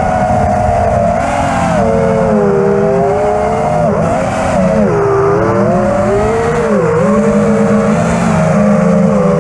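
FPV freestyle quadcopter's brushless motors (Xnova 2207 1950kv) spinning HQ V2S props, heard from on board. The whine rises and falls constantly with the throttle, with several sharp drops in pitch in the second half.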